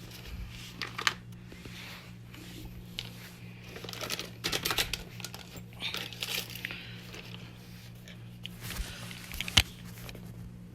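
Irregular rustling and scraping with a few sharp clicks and knocks, the loudest near the end, as tools and plumbing fittings are handled, over a steady low hum.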